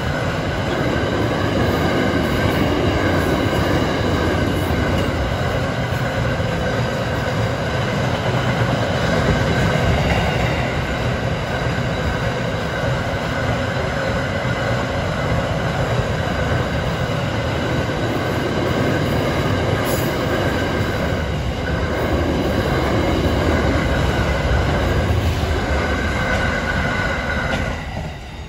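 Freight train of flat wagons loaded with steel coils rolling past close by: a steady rumble of wheels on rail with a continuous high wheel squeal over it. The noise drops away suddenly about a second before the end as the last wagon clears.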